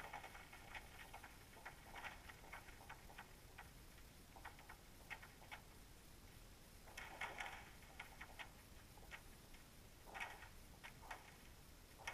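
Faint, irregular clicks and ticks, some coming in quick little clusters, picked up by a camera underwater.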